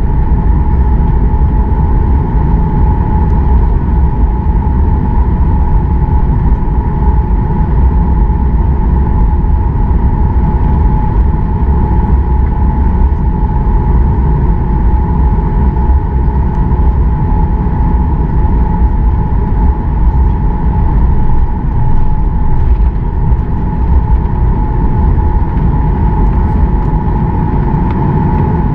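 Boeing 737 MAX 8's CFM LEAP-1B turbofan engines at taxi power, heard from inside the cabin: a steady high whine over a deep rumble, holding level with no spool-up.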